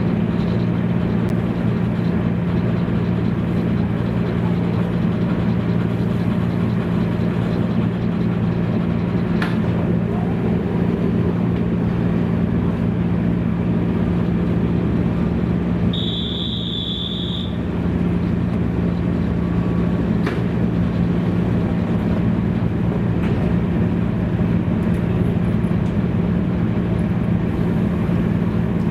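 Cabin sound of a JNR 113 series electric train car: a steady low electrical hum with faint clicks. About halfway through, a single high electronic beep sounds for about a second and a half.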